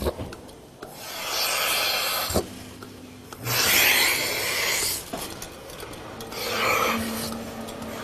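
Milking-machine teat cups hissing as the vacuum sucks in air while they are put on a cow's teats one by one. There are three hisses of about a second and a half each.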